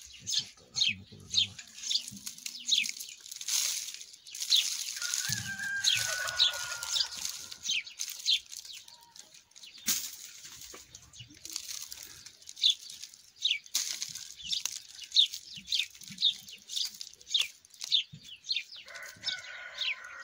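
Small birds chirping: short, high, downward-sliding chirps repeated a few times a second, with brief pauses. A rooster crows about five seconds in and again near the end, over faint handling noises.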